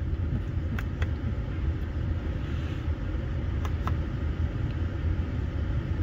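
Car engine idling, heard inside the cabin as a steady low rumble, with a few faint clicks.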